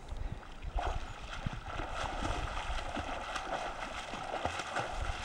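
Water splashing as a person swims, a continuous churning splash from the strokes that starts about a second in.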